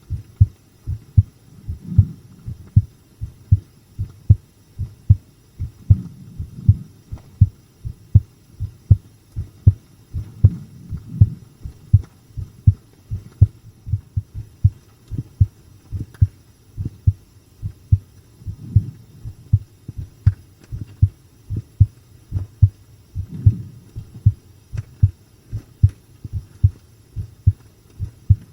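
A human heartbeat recorded close against the chest, with steady, strong lub-dub beats in an even rhythm.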